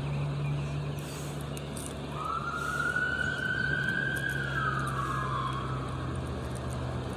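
A siren wails once, a single tone that rises slightly and then falls over about three seconds in the middle, over a steady low hum.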